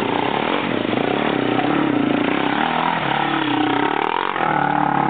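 ATV engine running under load on a climb, its pitch rising and falling as the throttle is worked.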